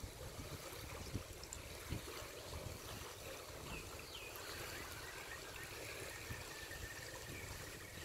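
Faint wind buffeting the microphone over the soft lapping of calm lagoon water on a rocky shore.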